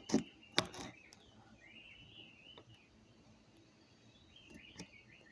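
A few sharp knocks in the first second, then faint, high, wavering chirps, a couple around 2 seconds in and more near the end.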